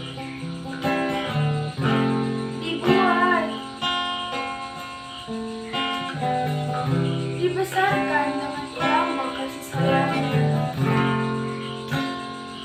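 Acoustic guitar strummed in slow, changing chords, with a voice singing a melody over it in a few phrases.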